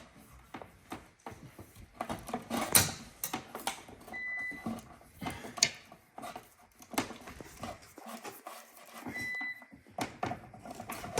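Alarm system panel beeping because the power is shut off: a short high beep twice, about five seconds apart. Scattered knocks and clatter of hand work run around it, the loudest about three seconds in.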